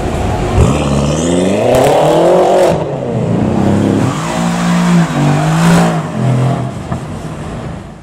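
Performance car engines revving hard. One rises sharply in pitch as it accelerates, then drops away, and a few seconds later another loud run of engine revs goes by. The sound fades out near the end.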